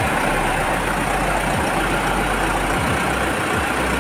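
Electric cooling fan of an add-on A/C condenser running steadily under a van, with the engine idling and the air-con switched on.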